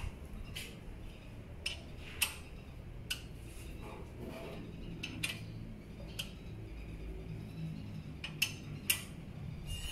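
Sharp metallic clicks and clinks from hand-fitting an AP Racing big-brake caliper, coming irregularly about once a second, over a low steady hum.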